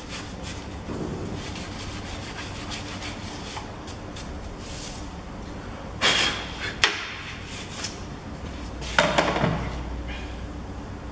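Workshop handling noise around a strut in a spring compressor: two short loud bursts of knocking and clatter, about six and nine seconds in, with a sharp click just after the first.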